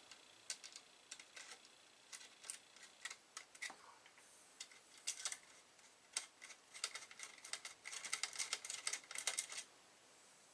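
Scattered light clicks, taps and scrapes of small computer parts and a hand tool being handled, with a busier run of clicking in the second half.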